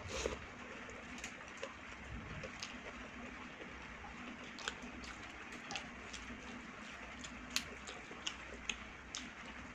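Close-miked eating with the hand: wet mouth clicks and smacks while chewing rice and dal, scattered irregularly over a faint steady hiss, with a sharper click near the end.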